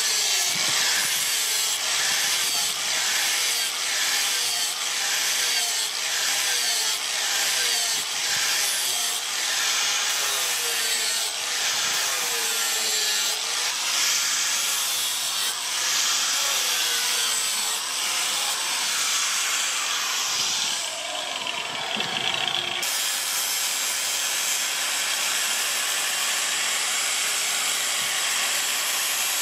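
Handheld angle grinder with an abrasive disc grinding a steel knife blade made from a chainsaw bar. The grind swells and eases about once a second. About three-quarters of the way through it changes abruptly to a steadier grind.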